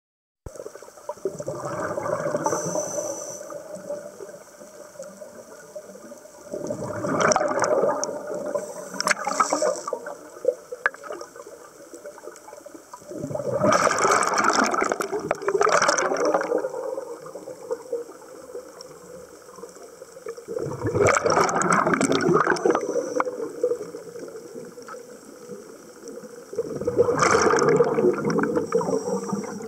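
Scuba diver breathing underwater through a regulator: five bursts of exhaled bubbles bubbling and gurgling past the camera, one about every six to seven seconds, with quieter stretches between them.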